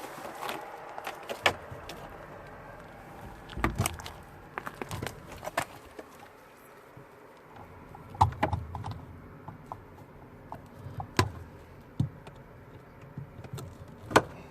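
Small pieces of scrap metal being handled, with irregular clinks and knocks and a few heavier thuds.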